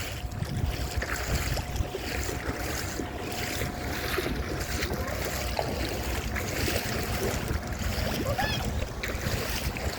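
Wind buffeting the microphone over a steady wash of water, with a faint steady tone for the first several seconds.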